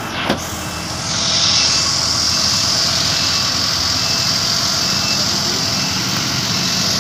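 Toyota forklift's engine running, with a faint beep repeating about every second. About a second in, a loud steady high hiss joins it.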